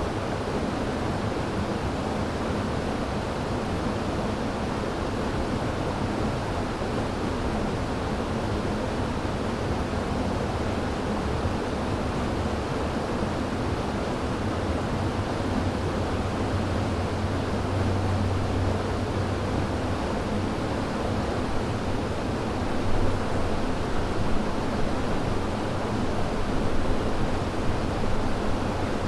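A river running over rocks, a steady rush of flowing water with a low rumble, growing a little louder and more splashy in the last few seconds.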